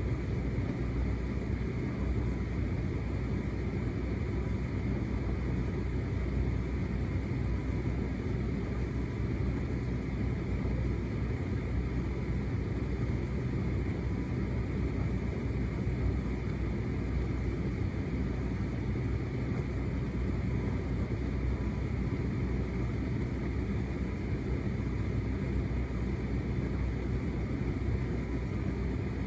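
Hotpoint SUTCD97B6PM condenser tumble dryer running on its shirts cycle: a steady rumble and hum from the motor, fan and turning drum as the load tumbles.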